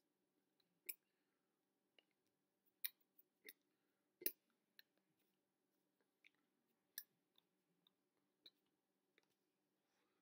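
Near silence with a faint steady hum, broken by a dozen or so short, soft clicks and taps at irregular intervals: hand contacts and mouth movements of a person signing.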